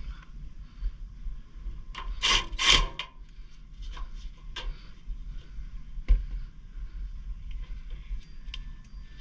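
Scraping and clicking handling noises: a loud rubbing scrape about two seconds in, then scattered clicks and taps over a low rumble.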